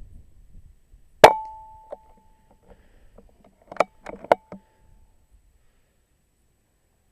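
Air rifle firing once, a sharp crack with a ringing ping that fades away, about a second in. A few sharp metallic clicks follow around four seconds in, one of them ringing briefly.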